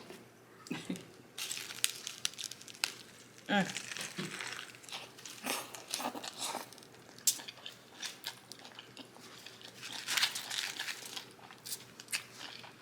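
Close-miked eating sounds: a lettuce-wrapped cheeseburger being bitten and chewed, with irregular crunches and wet clicks and some crinkling of the wrapping.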